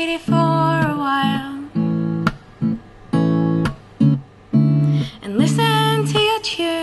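A woman singing to her own strummed acoustic guitar. The chords come in short strummed bursts with brief gaps between them, and two sung phrases glide up and down in pitch, one near the start and one after about five seconds.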